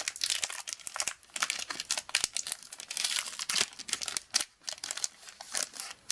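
Plastic Magic: The Gathering booster pack wrapper crinkling with irregular crackles as it is handled and opened.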